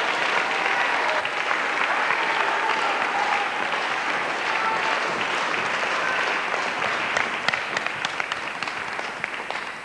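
Sustained applause from a crowd, thinning out into scattered separate claps and fading over the last couple of seconds.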